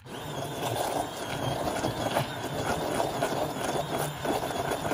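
Cuisinart stick blender switched on and running in a saucepan, puréeing hot strawberry glaze: a steady motor hum with a thin, wavering high whine over the churning of the liquid.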